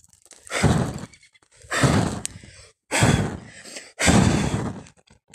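Four loud puffs of rushing air buffeting the microphone, about a second apart.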